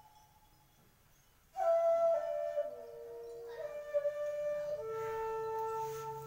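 Instrumental test music playing over hi-fi loudspeakers: a melody of long held notes that steps down in pitch, faint at first and coming in loudly about one and a half seconds in.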